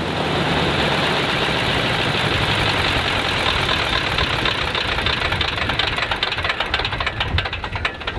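Stinson L-1's Lycoming R-680 nine-cylinder radial engine running smoothly, then shut down: from about six seconds in its steady note breaks into separate, slowing beats as the propeller winds down.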